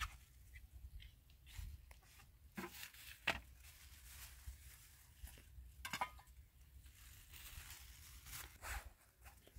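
Faint, scattered clicks, taps and rustles of plates and food being handled on a cloth, with a sharper knock about three seconds in and another about six seconds in.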